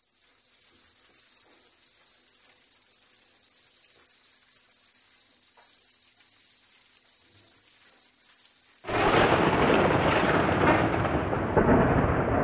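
Crickets chirping, a steady high pulsing trill. About nine seconds in, a loud, steady rushing noise cuts in abruptly and covers them.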